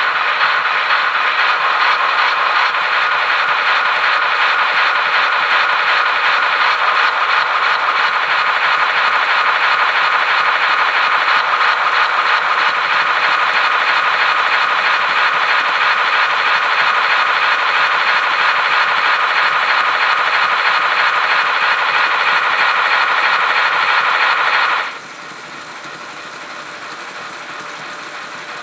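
H0-scale model steam locomotive running on rolling-road rollers, giving a loud, steady, fast rattle. About 25 seconds in it drops sharply to a much quieter running noise.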